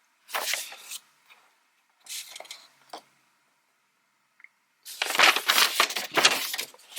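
Paper rustling and crinkling in short bursts: a brief one at the start, a softer one around two seconds in, and a longer, louder stretch from about five seconds in.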